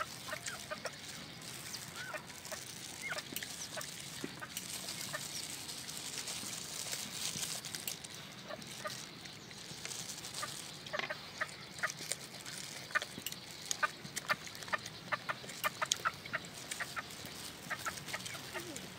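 Eating sounds: many short lip-smacking and chewing clicks as people eat roast chicken with their hands, thickest in the second half, with short clucks of chickens among them.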